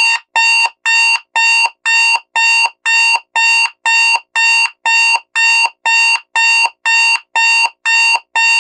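Digital alarm clock beeping loudly in a rapid, even pattern of about two short bright beeps a second.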